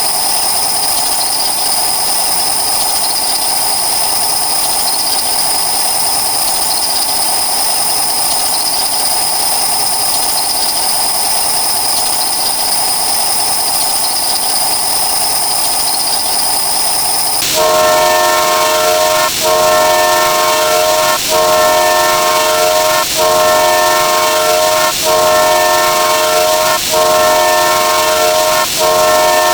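Sound effects: a steady hiss with a high whine for most of the stretch, then abruptly a multi-tone horn chord sounding in repeated blasts, each lasting just under two seconds with short breaks between them.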